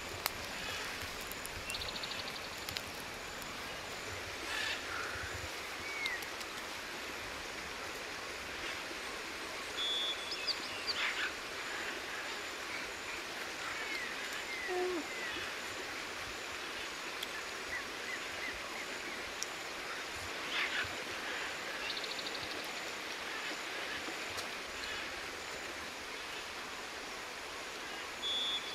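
Jungle ambience: a steady even hiss with short chirping calls of small birds scattered through it.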